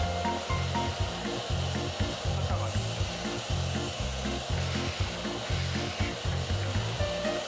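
Background music with a steady, repeating bass beat and short melody notes.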